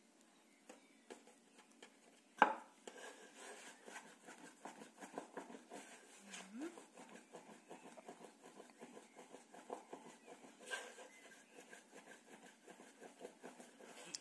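Small wooden rolling pin rolling out dumpling wrappers on a wooden tabletop: rapid light knocks and rubbing, with a sharper knock a couple of seconds in and another near eleven seconds in.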